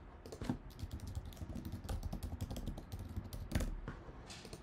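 Typing on a computer keyboard: a quick, irregular run of key clicks as an email address and password are entered, with one louder click about three and a half seconds in.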